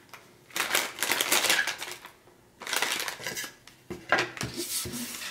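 A plastic candy bag crinkling and rustling as it is handled, in three bursts, with a few sharper clicks in the last.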